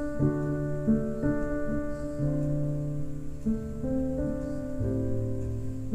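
Instrumental music: held chords that change roughly every second, with no singing.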